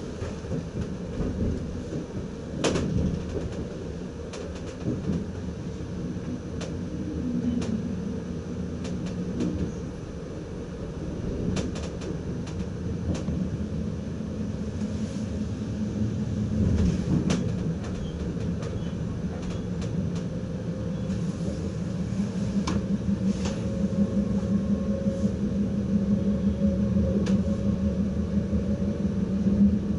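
NS ICM (Koploper) electric train running over station tracks, heard from inside the driver's cab: a continuous low rumble with scattered sharp clicks and knocks of wheels crossing rail joints and points. A steady motor hum grows louder in the last third.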